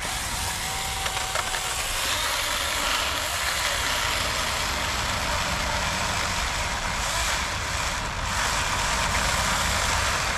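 Saker mini cordless electric chainsaw running and cutting through a hand-held log: a steady noise of motor and chain in the wood, dipping briefly about eight seconds in.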